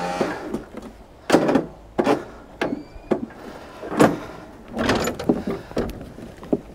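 Husqvarna LT130 lawn tractor's controls being worked: a series of about eight short, irregular clunks and rattles, with no engine running.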